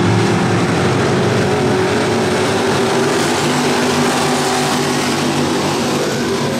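A pack of dirt-track race cars running under power around the oval, their engines together making a loud, steady sound.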